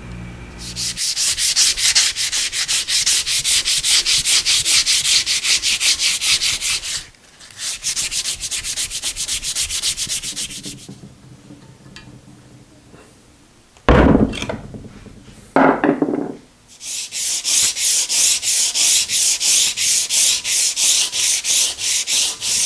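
Sandpaper worked by hand over hardened auto body filler on a cast-iron lathe bed: fast, rhythmic back-and-forth rasping strokes in three runs with short pauses. Two heavier bumps come during the longer pause, about two-thirds of the way through.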